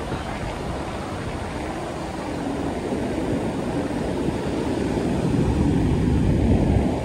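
Wind buffeting the microphone in a low rumble over the wash of breaking surf, growing louder about five seconds in.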